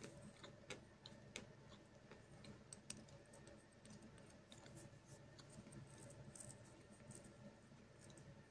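Faint, scattered crunching clicks of a mouthful of chalk being chewed with closed lips.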